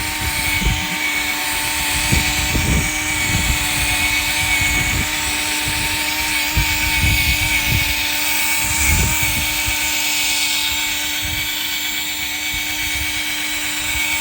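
Cordless drill running steadily at constant speed, spinning a restoration pad against a plastic headlight lens. Wind buffets the microphone with irregular low rumbles.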